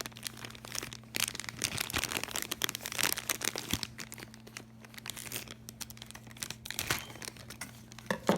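Plastic and cardboard toy packaging being handled, crinkling and tearing in irregular bursts as a boxed toy set is opened.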